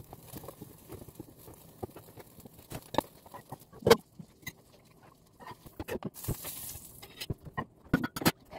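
Kitchen prep sounds: a knife slicing cucumber on a cutting board, then a fork and utensils clinking against a frying pan and a plate, with one louder knock a little before the middle and a short hiss later on.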